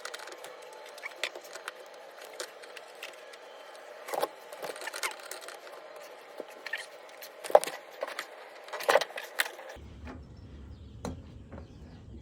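Scattered metallic clinks and knocks of a motorcycle drive chain and parts being handled, over a steady background hum. About ten seconds in the hum gives way to a low rumble.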